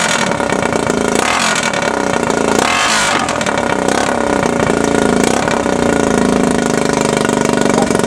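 Yamaha Timberwolf 250 ATV's single-cylinder four-stroke engine idling through a homemade open straight-pipe exhaust with no tip fitted, a steady, loud exhaust note.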